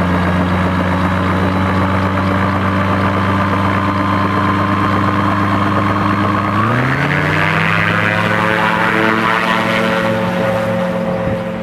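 Autogyro's pusher engine and propeller running steadily at low power, then throttled up about two-thirds of the way through, the note rising quickly and holding higher as it goes to full power for the takeoff roll.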